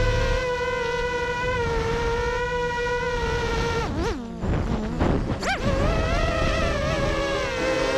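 Vortex 250 Pro FPV racing quad's electric motors and propellers whining steadily, then dipping and sweeping sharply down and up twice around the middle as the throttle is cut and punched while the quad banks over.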